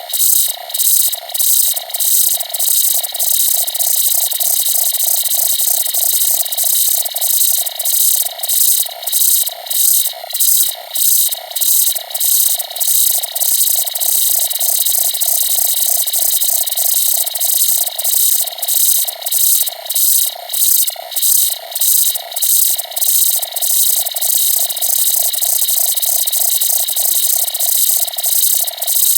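Synthesized UFO-contact sound effect: a mid-pitched tone and a bright hiss pulsing together in a steady rhythm of about two beats a second.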